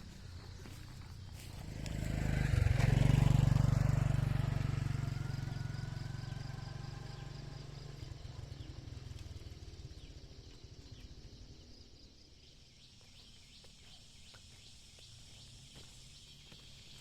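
A motor vehicle passes close by, loudest about three seconds in, then fades away slowly over several seconds.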